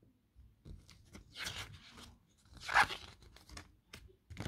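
Paper rustling and crinkling as a page of a softcover picture book is turned by hand: several short, separate rustles, the loudest about three seconds in.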